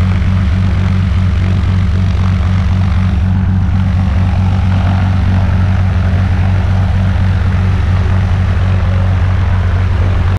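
High-wing single-engine light plane's piston engine and propeller running steadily at ground idle, a loud, even drone that does not change.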